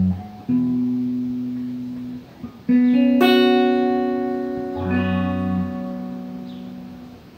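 Electric guitar playing a slow blues phrase: a held low note, then a chord struck about two and a half seconds in and another about five seconds in, both left to ring and fade away.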